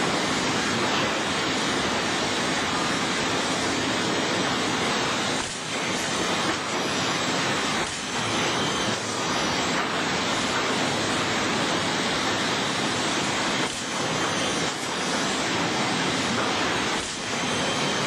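Sawmill machinery running: a loud, steady roar of mill noise with a few short dips in level.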